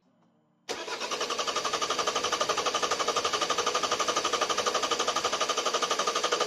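Starter cranking a Volvo V50's 1.6-litre four-cylinder turbodiesel, which turns over with a steady, fast, even chugging rhythm that starts suddenly under a second in but does not catch. The engine will not fire for lack of fuel pressure, which the owner puts down to air in the fuel system after the injector replacement.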